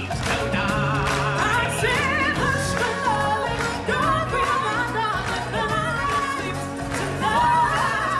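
Upbeat stage-show music: several singers hold wavering notes over a band backing with a steady beat.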